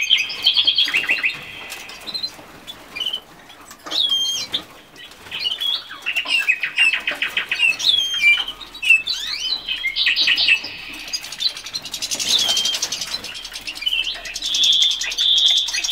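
Small caged finches chirping and twittering: short calls, several fast buzzy trills, and sliding whistled notes.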